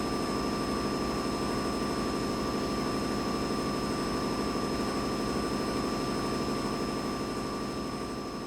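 Boiler room machinery ambience: a steady mechanical drone with a low rumble and two thin, steady whines. It begins to fade out near the end.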